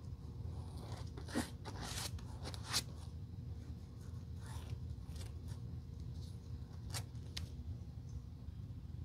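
A metal tool scraping across the surface of a black rubber shoe-heel piece: a series of short, scratchy strokes, the loudest two in the first three seconds, over a low steady hum.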